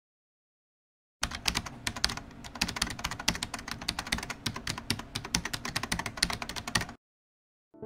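Computer-keyboard typing sound effect: a fast, dense run of key clicks that starts about a second in and stops abruptly about a second before the end.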